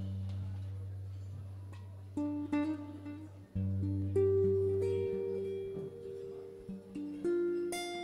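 Acoustic guitar playing slow, plucked chords, low bass notes ringing under single higher notes.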